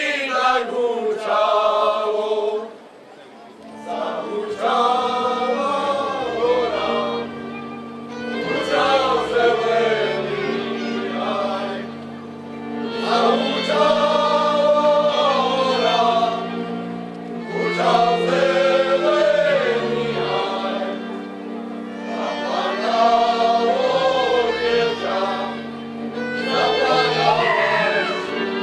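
A group of singers performs a Slovak folk song in phrases of about four to five seconds, with short breaks between them. Under the voices an instrumental accompaniment holds steady notes over a bass line that steps from note to note.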